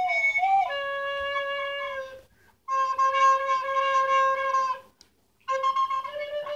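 Plastic soprano recorder being played: a few quick notes, then long held low notes in three breaths with short pauses between them.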